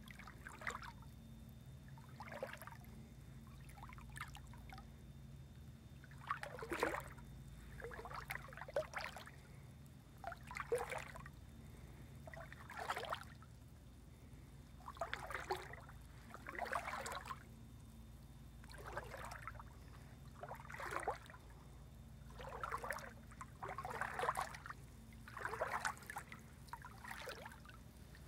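Footsteps wading through shallow water, a splashing swish about every one to two seconds.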